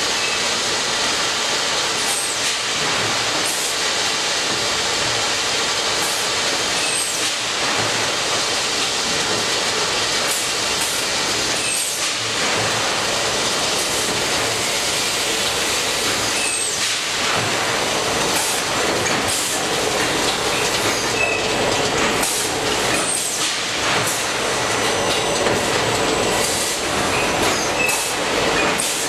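Automatic bagging and palletising line running, with powered roller conveyors carrying a loaded pallet of bags. A steady mechanical clatter and hiss, broken by scattered clicks and brief high squeaks.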